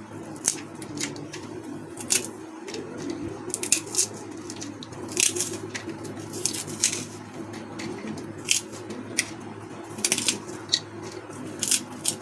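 Roasted fox nuts (phool makhana) being broken and crushed by hand in a steel plate, giving irregular sharp crunches and crackles, with a steady low hum behind.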